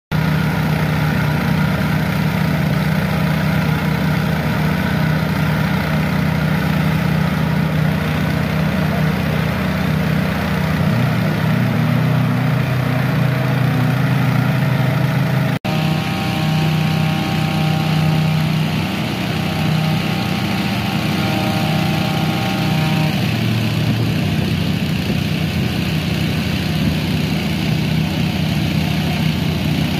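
Small petrol engines of portable water pumps running steadily at constant speed, pumping water out of a flooded barge. The sound breaks off for an instant about halfway, then carries on unchanged.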